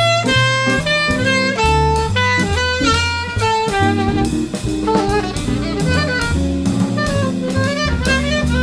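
Small jazz combo playing live: a saxophone solos in quick runs of notes over a walking upright bass and a drum kit keeping time on the cymbals, with electric guitar in the band.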